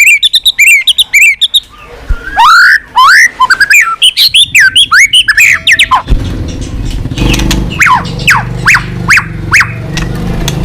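White-rumped shama singing a loud, varied song: a quick run of chirps, then rising and falling whistles, then a series of fast falling whistled notes. A low steady rumble joins about six seconds in.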